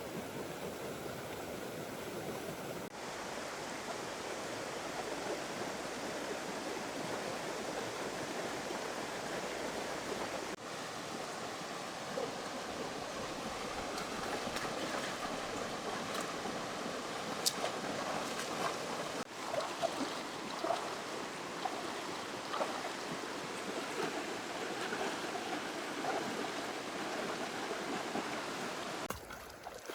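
River water flowing steadily, with scattered small clicks in the second half.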